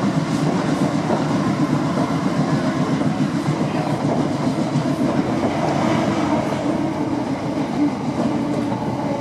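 Cabin noise of a Class 455 electric multiple unit running between stations: a steady rumble of wheels on rail.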